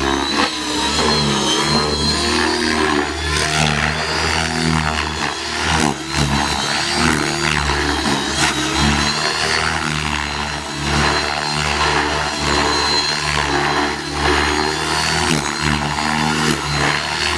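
Align T-Rex 600E electric RC helicopter flying aerobatics: a steady low beat from the main rotor under a whine from the motor and blades, its pitch rising and falling as the helicopter swoops and changes load.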